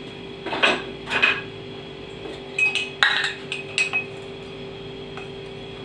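A small metal spoon clinking against dishes about five times, light and short, while a spoonful of chili powder is measured out. A steady low hum sits underneath.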